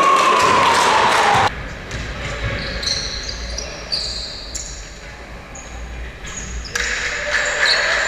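Basketball game sounds echoing in a gymnasium: sneakers squeaking on the hardwood floor in many short high squeaks, with a ball bouncing. A long falling tone rings through the first second and a half, after which the sound drops abruptly, and it comes back up near the end.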